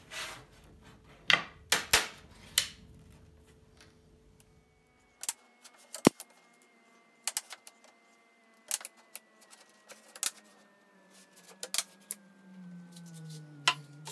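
Small neodymium disc magnets snapping onto a steel sheet and against one another as they are set down one by one: a string of irregular, sharp metallic clicks, some of them loud.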